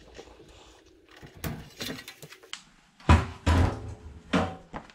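Knocks and clunks from handling the dryer's sheet-metal cabinet parts: a few light clicks about halfway through, then two heavy thuds a little after three seconds in and a lighter knock near the end.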